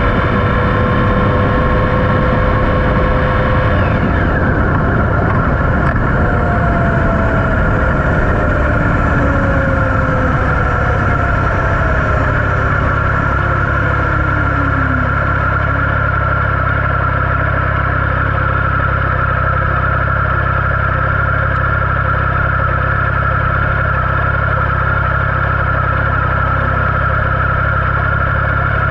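Triumph Speed Triple 1050's inline three-cylinder engine running on the road, with a few falling tones in the first half, then holding one steady note at cruising speed.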